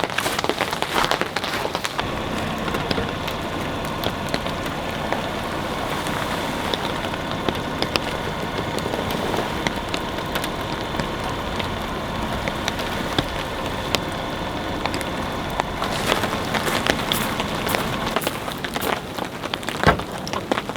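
Steady rain falling, with many sharp drop taps close by that are busiest at the start and again near the end.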